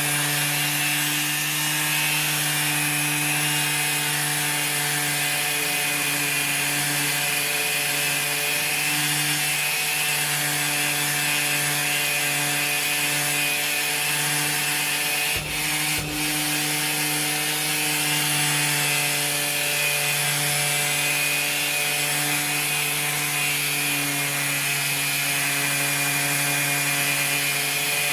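Makita orbital sander running steadily against an alloy wheel, sanding off the thick clear coat and salt corrosion. It hums with a steady hiss, broken by a couple of short knocks about halfway through.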